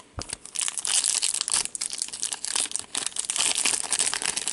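Foil wrapper of a 2015-16 Upper Deck Series 2 hockey card pack crinkling and tearing as it is ripped open by hand, a dense run of crackles starting about a second in.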